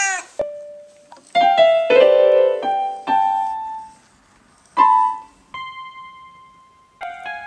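Portable electronic keyboard sounding random notes as a cat's paws press the keys: a short note, then clumsy clusters of several keys at once, a few single notes with gaps between, and one note held for over a second before more keys are pressed together.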